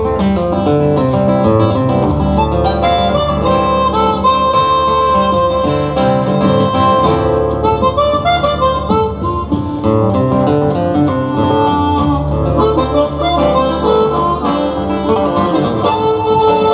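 Harmonica playing a busy melody of short notes over acoustic guitar accompaniment, live instrumental music.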